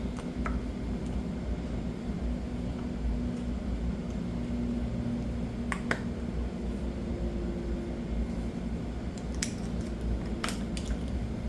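A few sharp metallic clicks as small parts of a pressure washer's disassembled unloader valve are handled, over a steady low hum.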